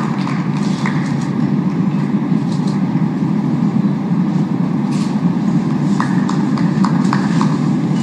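Scattered hand claps from a small audience, sparse and irregular, thickening a little near the end, over a steady low background rumble.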